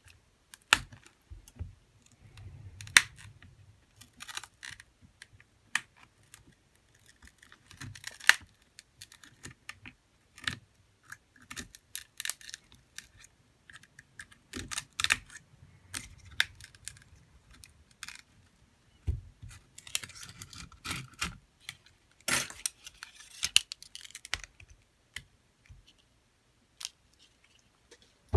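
Irregular small clicks, taps and scrapes of pry tools working around the edge of a smartphone's plastic frame to separate the display. Short stretches of scraping come in the middle and again past two-thirds of the way.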